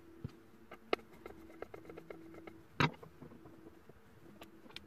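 Light clicks and taps of hands handling the plastic housing of a VAS5054A diagnostic interface, with one louder knock nearly three seconds in, over a faint steady hum.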